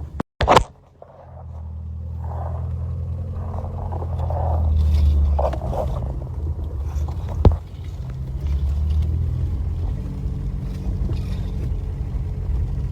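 Car engine running while driving, building up over the first few seconds, easing off around the middle, then pulling again. There is a sharp click about seven and a half seconds in, and another, with a brief break, at the very start.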